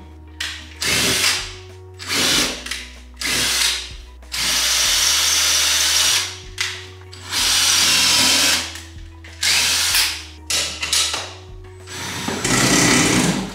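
Ryobi ONE+ 18V cordless drill/driver running in repeated bursts as it works into the wall to mount a shelf: several short bursts and two longer runs of nearly two seconds each.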